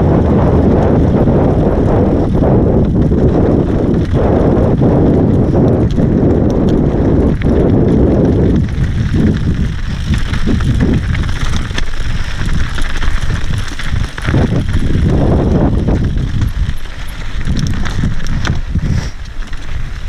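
Mountain bike descending rocky singletrack: tyres rumbling over dirt and stones, and the bike clattering and rattling over bumps, with wind rushing over the microphone. The wind rush is heaviest for the first eight seconds or so, then eases, leaving the knocks and clatter of the bike plainer.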